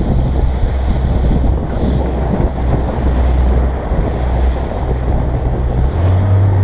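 Outboard motor running at speed under the rush of the boat's wake and wind buffeting the microphone. The engine's low hum shifts slightly higher about six seconds in.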